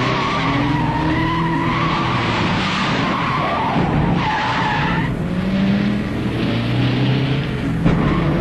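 Cars in a chase: engines revving and tyres squealing as they skid through turns, with a sustained tyre squeal about four seconds in.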